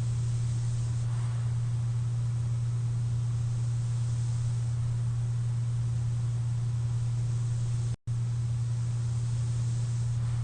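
CPAP machine running: a constant low hum under a steady hiss of air, with faint swells of a sleeper's breathing through the mask every few seconds. The sound drops out for an instant about eight seconds in.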